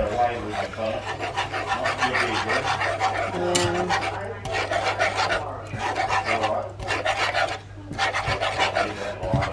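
Wire whisk scraping quickly and continuously around a frying pan, beating a thickening milk-and-flour sauce, with a couple of brief pauses in the second half.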